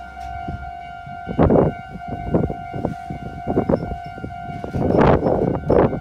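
Japanese railway level crossing's electronic warning bell sounding its steady 'kan-kan' tone while the lights flash, over irregular knocks and rumbling that grow louder near the end.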